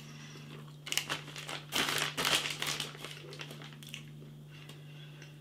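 Plastic bag of frozen fries crinkling as it is handled, mostly between about one and three seconds in.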